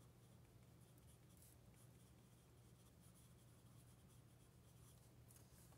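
Faint scratching of hand-lettering on sketchbook paper, over a low steady hum.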